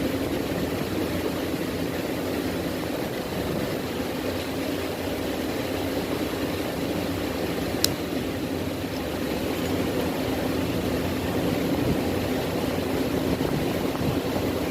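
Steady mechanical hum of a running motor, with one sharp click about eight seconds in.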